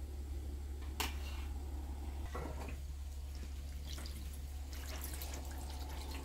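Water poured from a glass jug over boiled dough pieces in a plastic colander, trickling and dripping through into a tray below in the second half. A sharp knock comes about a second in, over a steady low hum.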